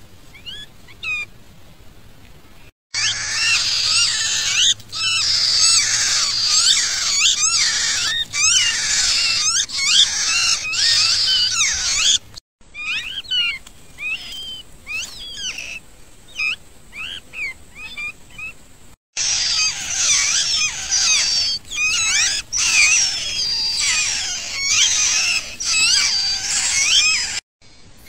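Sooty-headed bulbul nestlings begging: many overlapping high-pitched chirps, sparse at first, then a dense chorus in long stretches, broken off abruptly several times.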